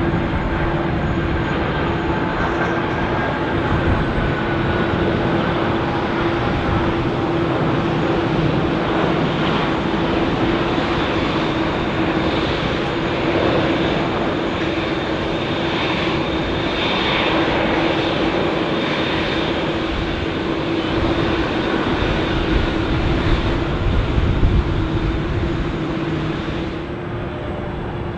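Four-engined Boeing 747 airliner arriving to land: a continuous jet-engine rush with a steady hum, swelling a little in the middle and dropping away near the end.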